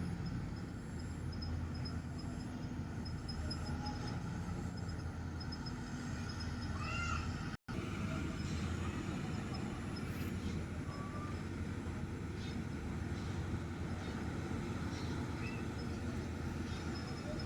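Kartar 4000 combine harvester running steadily while cutting, a low engine drone under a rushing mechanical noise. A few short, high, arching calls sound over it, the clearest about seven seconds in, just before a brief dropout in the sound.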